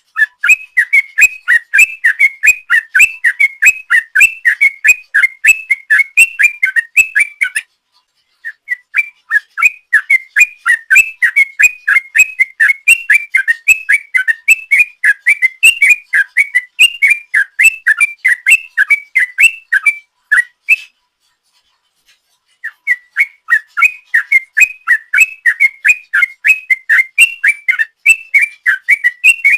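Yellow-vented bulbul (trucuk) singing a long rapid 'ropel' song: bubbling whistled notes at about four a second in long unbroken runs, with two short breaks, one about a third of the way in and a longer one about two-thirds in.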